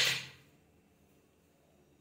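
Ice cubes dropping and clattering into a blender jar, dying away within the first half second. Then near silence.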